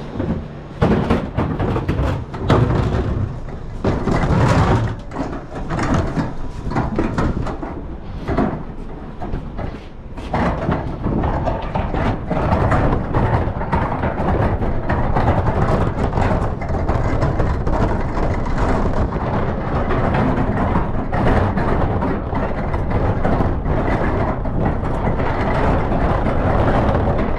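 Large plastic wheelie bin being pulled along on its wheels. For the first ten seconds or so it clatters and knocks over rough concrete, then settles into a steady rolling rumble on smooth tarmac.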